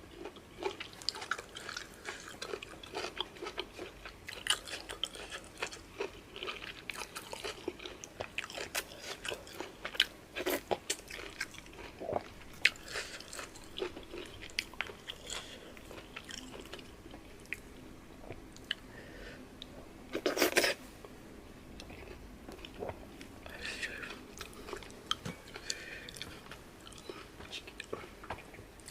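Close-miked eating of fufu and peanut soup by hand: chewing, biting and wet mouth smacks in quick, irregular clicks, with one louder burst about twenty seconds in.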